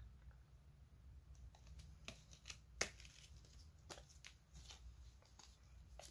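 Faint rustling and a scatter of small sharp clicks from hands handling clear plastic coin packaging and silver coins, the sharpest click nearly three seconds in.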